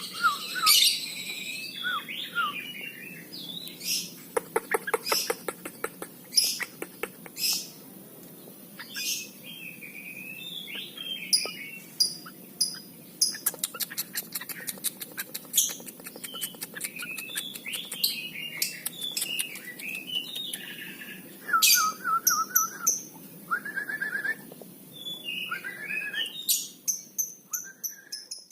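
Sooty-headed bulbul (trucuk) calling busily: many short chirps and whistled notes, with quick runs of clicking notes and sharp loud calls scattered throughout.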